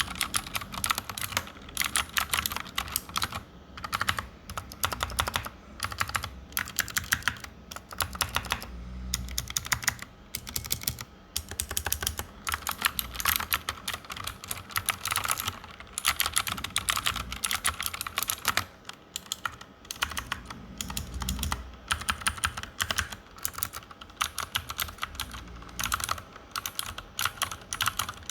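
Anne Pro 2 mechanical keyboard with blue clicky switches and GMK Bento keycaps being typed on quickly, a dense run of sharp clicks in fast bursts with short pauses.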